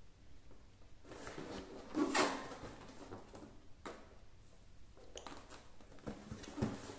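Cardboard product box being handled and turned over: hands rubbing and scraping on the carton, loudest about two seconds in, with a sharp tap near four seconds and more rustling toward the end.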